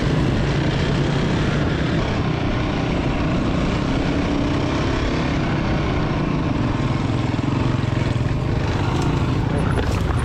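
Dirt bike engine running steadily while riding a sandy trail, heard from on the bike.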